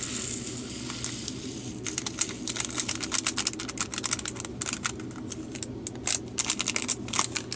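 A small plastic packet of resin diamond-painting drills crinkling, then a dense, fast run of tiny clicks as the drills are poured out and clatter into a plastic container.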